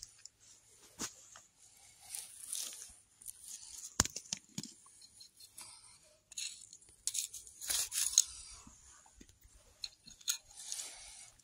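Dry pine needles and twigs crackling and rustling under a hand picking a mushroom from the forest floor, with sharp snaps among them; the loudest snap is about four seconds in, and the crackling grows busiest about seven to eight seconds in.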